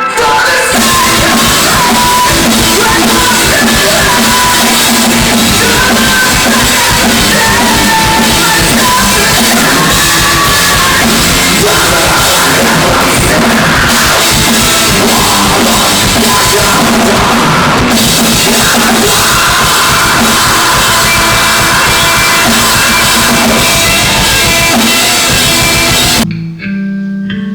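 Heavy metal band playing full-out at a sound check: pounding drum kit and distorted electric guitars. It cuts off sharply near the end, giving way to a quieter guitar passage.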